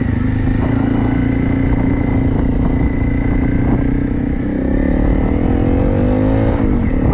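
Honda CRF250L's single-cylinder engine running under way, its pitch climbing over the last couple of seconds as the bike accelerates.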